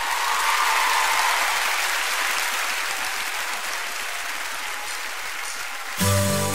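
Concert audience applauding, the clapping slowly dying down. Band music cuts in abruptly near the end.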